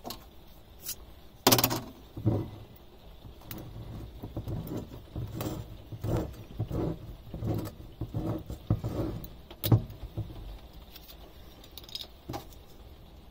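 Hand bike pump being worked in steady strokes, about one and a half a second, forcing air through a ball inflation needle into a wine bottle to push the cork out. There is a sharp knock about a second and a half in, and a single sharp snap near the end of the pumping.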